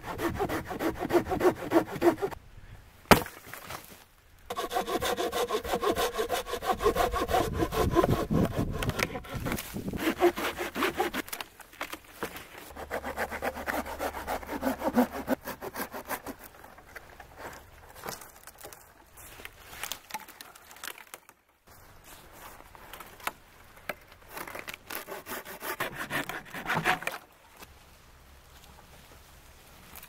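Hand saw cutting through wood in several bouts of rapid back-and-forth strokes, with short pauses between them.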